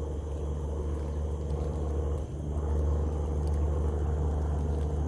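An engine running steadily with a low drone. It dips briefly a little over two seconds in, then comes back slightly louder.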